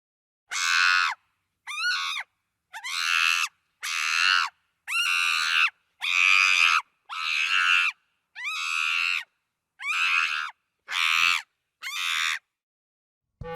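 Chimpanzee screaming: about eleven shrill, high-pitched screams in a row, roughly one a second, each cut off clean with silence between.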